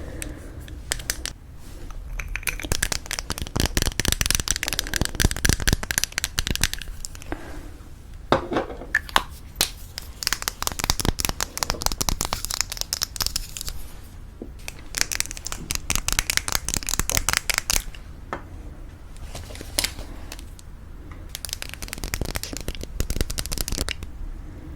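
Rapid fingernail tapping on lipstick cases, coming in bursts of a few seconds with short pauses between.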